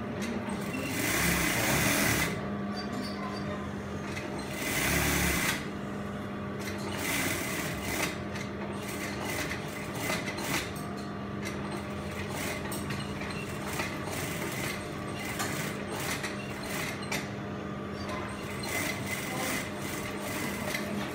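Brother industrial sewing machine stitching in short runs over a steady motor hum, with two louder runs about a second in and about five seconds in.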